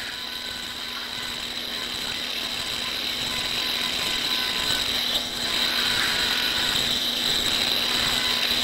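High-speed otologic surgical drill with a cutting burr, whining steadily as it grinds through temporal bone around the posterior semicircular canal, over a steady suction hiss. It grows slowly louder, with a brief dip about five seconds in.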